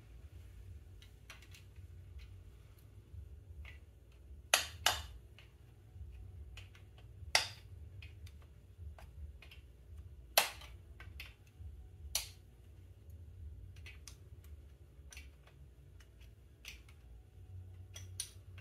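Irregular sharp metal clicks and clinks of a hand tool against the oil pump nuts and washers as they are fitted and tightened on the timing side of a 1977 Triumph Bonneville T140V engine. The loudest five or so come a second or more apart, among fainter ticks, over a low steady hum.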